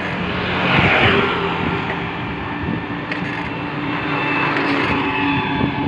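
KTM motorcycle engine running while riding along a road, with wind noise on the microphone and a louder rush of noise about a second in.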